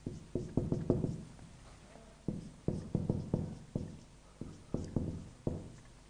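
Whiteboard marker writing on a whiteboard: a run of irregular sharp taps as the tip strikes the board stroke by stroke, with a short gap about a second and a half in.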